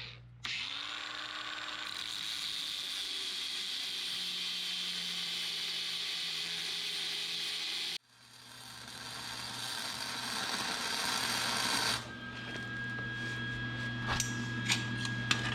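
Hand-held power tool, most like an angle grinder, running against steel: a motor that spins up near the start, then a steady whine over noise that slowly sinks in pitch as it bites, in several separate stretches with abrupt breaks between them.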